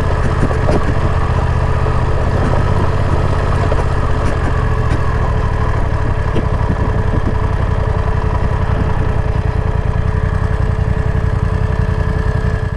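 BMW motorcycle engine idling steadily, with no revving.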